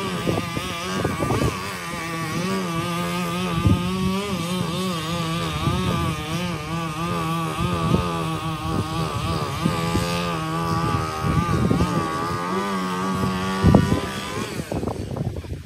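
Chainsaw running at high revs, its pitch stepping down and back up as it bogs and frees while cutting fallen branches, with a few sharp knocks.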